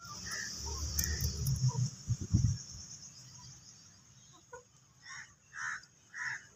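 Desi aseel chickens giving three short clucks between about five and six seconds in. A steady high-pitched hiss runs through the first four seconds, and low rumbling with a few heavy thumps, the loudest sounds here, fills the first two and a half seconds.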